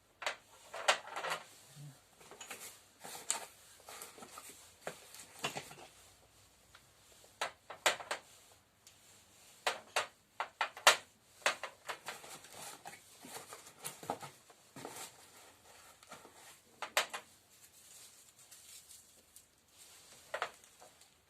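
Irregular clicks, knocks and rustling as a set of lathe cutting tools is unpacked and handled.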